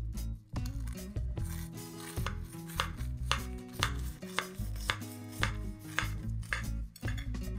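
A knife cutting down through a baked sugar cake's crisp, crumbly sugar-butter topping: a run of crunchy crackles, roughly one every half second.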